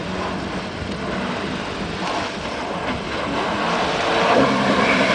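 Jet ski engine running at speed, growing louder near the end as the craft comes closer and carves a turn, with the rushing hiss of its spray.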